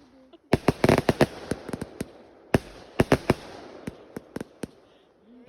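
A 180-shot, 0.8-inch-calibre consumer fireworks cake firing in sharp bangs. There is a rapid cluster of shots about half a second in, then single and paired shots every half second or so, with a crackling hiss between them.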